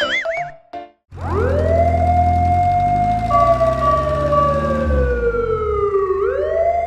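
A slow wailing siren over a low engine rumble: it winds up quickly about a second in, holds, slowly falls in pitch for several seconds, then winds up again near the end. It opens with a short cartoon whistle sliding up and down.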